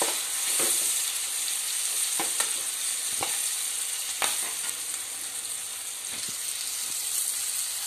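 Onions, green peas, curry leaves and green chillies sizzling in hot oil in a kadhai, with a steady hiss. A spatula scrapes and knocks against the pan a few times in the first half.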